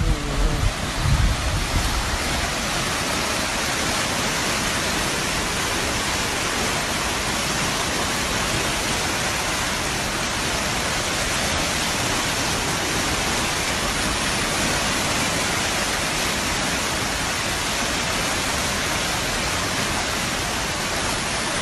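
Torrent of muddy floodwater rushing, a steady, even roar of water, with a few low thumps on the microphone in the first second or so.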